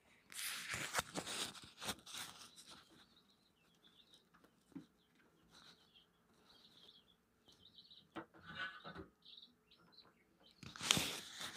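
Rustling and handling noises as things are moved about on an altar, loudest in the first few seconds and again near the end, with faint high chirps in between.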